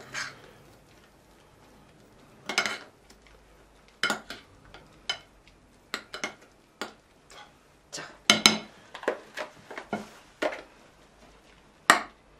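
A metal spoon knocking and scraping against a glass dish while stirring grated raw potato mixture, in scattered irregular clinks.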